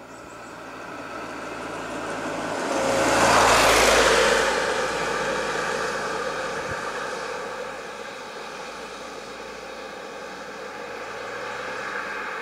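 Road traffic passing close by: a vehicle's engine and tyre noise swells to a peak about three to four seconds in and then fades, and another vehicle draws nearer near the end.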